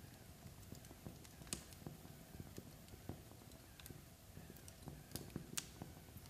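Log fire crackling faintly: irregular small ticks and pops over a low rumble, with a sharper snap about a second and a half in and the loudest one near the end.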